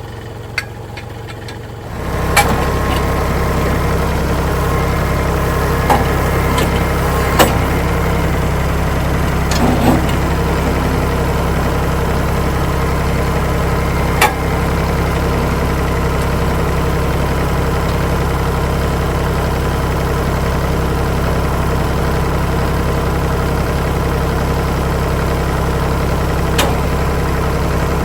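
Kubota tractor's diesel engine running steadily at idle, becoming much louder about two seconds in. A few sharp metallic clanks sound over it.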